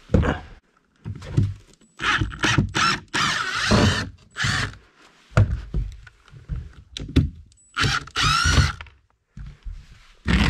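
Cordless drill-driver running in two spells of one to two seconds, its pitch rising and falling as it drives screws into the timber. Knocks and clatter of handling come in between.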